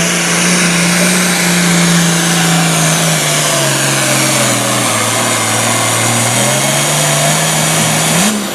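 Super farm pulling tractor's diesel engine running hard under load. Its pitch holds, sags lower about halfway through, climbs back, and dips briefly near the end.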